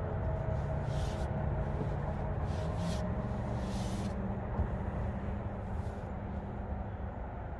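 Jet boat's outboard engine running steadily at low speed, its pitch rising slightly about three seconds in, with a few brief hisses over it.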